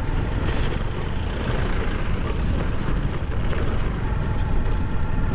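125cc motorcycle engine running steadily as the bike rides along a dirt street, heard from the rider's seat with a strong low wind rumble on the microphone.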